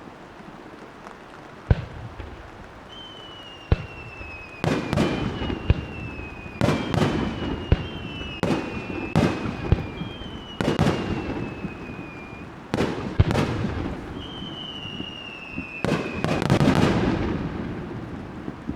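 Fireworks display: a dozen or so sharp aerial shell bursts, some echoing, with several whistling tones that slide gently down in pitch between them. Near the end the bursts crowd together into a louder, crackling volley.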